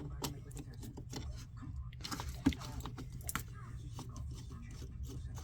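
Screwdriver working screws out of a vintage chainsaw's plastic tank housing: a scatter of small clicks and ticks, with one sharper click about two and a half seconds in.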